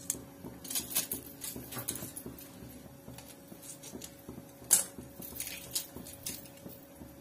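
A lemon being squeezed by hand over spiced raw chicken in a steel bowl: a scatter of faint, irregular clicks and crackles, one a little sharper about two-thirds of the way in. A faint steady hum runs underneath.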